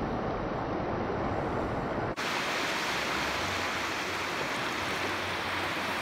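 Small sea waves breaking and shallow surf washing in over stone paving, a steady rush of water. About two seconds in the sound cuts abruptly to a hissier stretch of the same surf.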